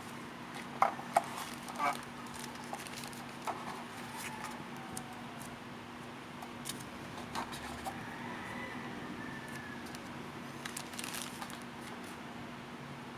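Small handling sounds of a product box and its packaging: a few sharp clicks in the first two seconds, then faint rustles and ticks over a steady low hum.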